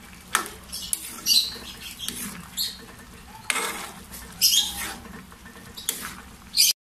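Metal spoon stirring a thick stew in a frying pan, scraping and clinking against the pan in a series of irregular strokes. The sound cuts out briefly near the end.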